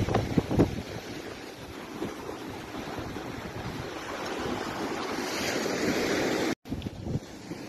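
Surf breaking and washing up a sandy beach, with wind buffeting the microphone in a few hard gusts in the first second. The surf swells louder later on, then the sound cuts out for an instant near the end.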